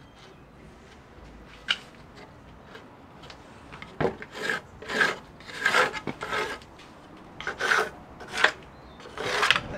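Pencil scratching marking lines onto an old rough wooden floorboard, in a series of short quick strokes in two bouts, with a single sharp tap before them.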